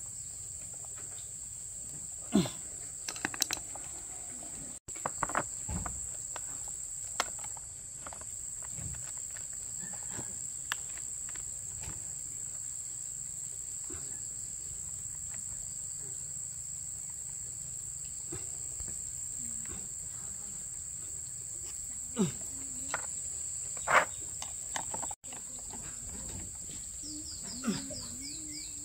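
Steady high-pitched chorus of crickets, with scattered sharp clicks and knocks over it, the loudest about two seconds in and again near 24 seconds.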